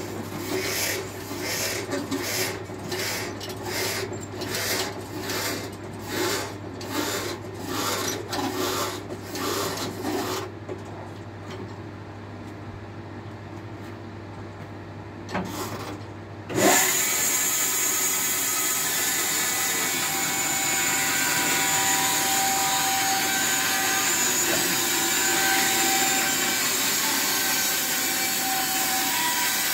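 Holzmann BBS 550smart portable band sawmill. For the first ten seconds there is a rhythmic scraping, about two strokes a second, over a low steady hum. About sixteen seconds in the machine starts with a sudden loud rise, and its band blade then runs steadily, cutting along the log.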